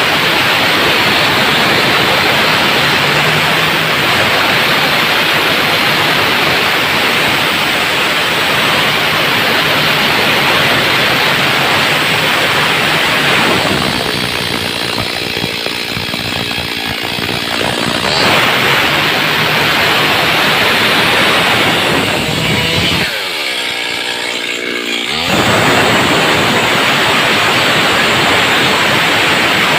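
Stihl chainsaw running at high revs throughout. The engine note eases off twice, once about halfway through and once a few seconds later, and both times climbs back to full speed.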